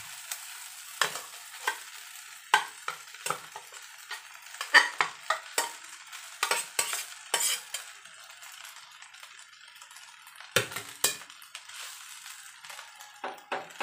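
Cooked rice being scraped out of a pot with a spatula into a hot frying pan and stirred over a steady sizzle, with irregular clacks and scrapes of the spatula against pot and pan, loudest about five and ten and a half seconds in.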